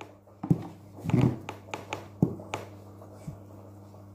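Serrated knife cutting into a large pumpkin's hard rind and flesh, with a series of separate sharp clicks and knocks as the blade and pieces strike the table, the louder ones in the first second or so.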